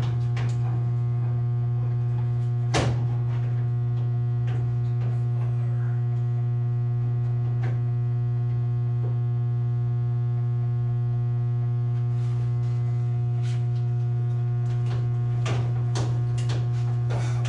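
Steady, loud low electrical hum from live switchgear, with a stack of overtones above it. Over it come sharp metallic clicks and knocks as a breaker is handled and fitted against the panel bus: a clear one about three seconds in and a cluster near the end.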